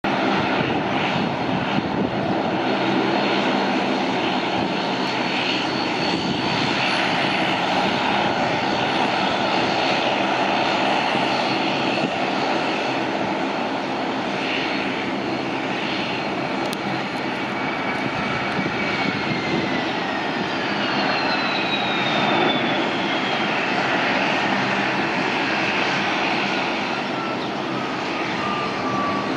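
Jet engines of a Boeing 767 freighter running at high power on its takeoff roll: a steady, loud rushing noise. Over roughly the last ten seconds, a whine falls steadily in pitch.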